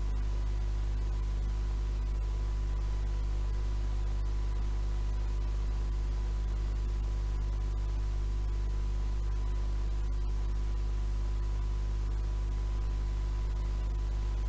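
Steady tape hiss over a low mains hum, the sound of reel-to-reel tape playing back with no programme on it, with a faint thin high tone held throughout.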